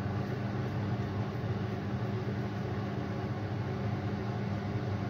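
Steady hum and hiss of an induction hob running under a pan of water, rice and chicken that is bubbling at the boil.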